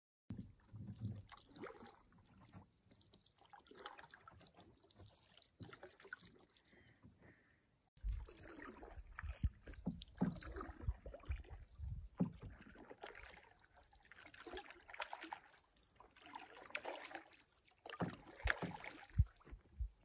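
Canoe paddles stroking through calm river water: repeated irregular swishes and drips, with occasional low thumps from about eight seconds in.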